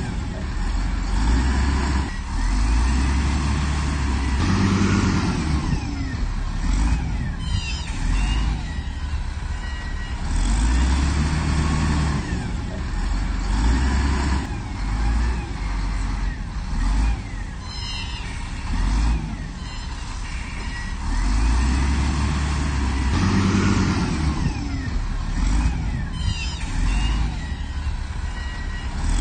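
Diesel engine of heavy earthmoving machinery running and revving up and down under load every few seconds, with a few short high-pitched metallic squeaks.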